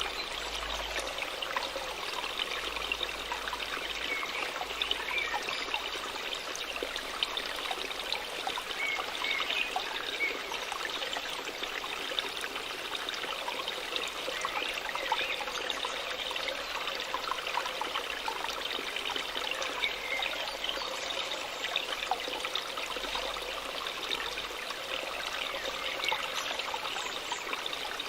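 Water falling and splashing steadily from a small waterfall, an even rushing with light splashes.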